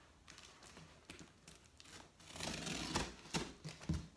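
Scissors cutting the packing tape on a large cardboard box: scratchy rasps and snips that get busier from about halfway in, with a few sharp clicks near the end.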